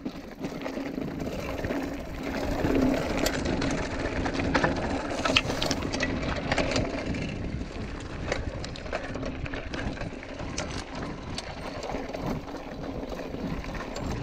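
Mountain bike rolling along a dirt and gravel trail: continuous tyre noise on the loose surface with many sharp clicks and rattles from the bike.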